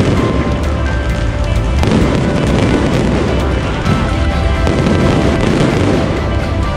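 A dense, continuous barrage of aerial firework shells launching and bursting, with heavy booms and many crackles. Music plays underneath.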